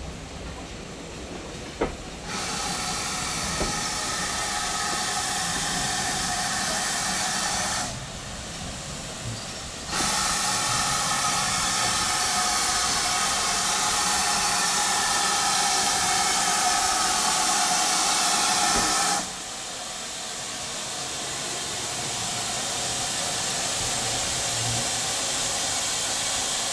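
Steam tank locomotive No. 9351 standing and venting steam: a loud steady hiss that starts sharply about two seconds in, stops near eight seconds, comes back about ten seconds in and cuts off sharply just after nineteen seconds.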